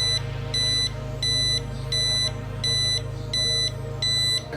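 Flexispot E1N standing desk control panel sounding its sit-stand reminder alert: seven short, high-pitched electronic beeps, evenly spaced at roughly one and a half a second.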